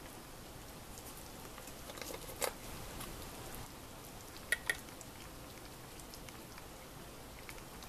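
Hot pot simmering with a steady light bubbling patter. Over it come sharp clinks from the glass shochu cup and the ice-filled metal tumbler as shochu is poured: one about two and a half seconds in, and a quick pair of ringing clinks about four and a half seconds in.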